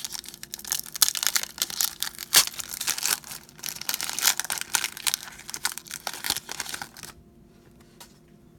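Foil wrapper of a trading-card pack crinkling and tearing as it is opened, a dense irregular crackle that stops about seven seconds in.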